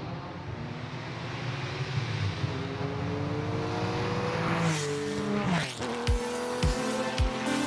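A car engine accelerating, its note rising steadily in pitch, ending in a quick whooshing sweep like a car passing or skidding. About six seconds in, music with a steady kick-drum beat starts.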